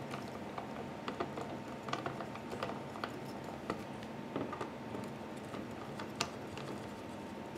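Faint, irregular small clicks and ticks of a screwdriver tip turning in and tightening the small screws that hold the cooling fan in a Mac mini.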